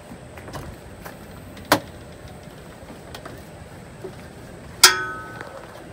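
Travel trailer entry door opened by hand: a sharp latch click about a second and a half in, then near the end a loud metallic clank that rings briefly as he steps up into the doorway.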